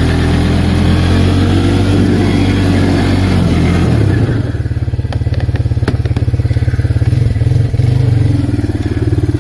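Arctic Cat 366 ATV's single-cylinder four-stroke engine running steadily under throttle, then dropping about four seconds in to a lower, evenly pulsing idle, with a few light clicks.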